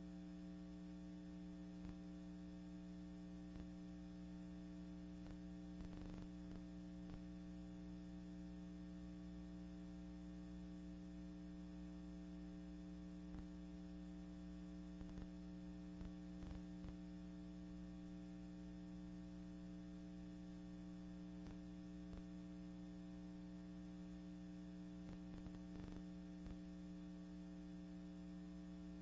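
Faint, steady electrical mains hum on the soundtrack of an archival film transfer, with a few faint clicks scattered through it.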